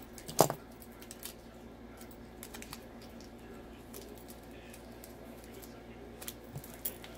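Small handling noises of paper planner pages and stickers: one sharp knock about half a second in, then scattered light ticks and rustles.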